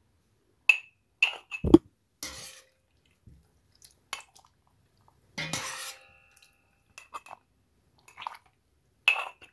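Metal slotted spoon clinking against a small glass jar and the rim of a stainless steel pot as soft cooked peppers are spooned into the jar: a string of separate sharp clinks, some ringing briefly, with a dull thump just under two seconds in and a longer scraping clatter about halfway through.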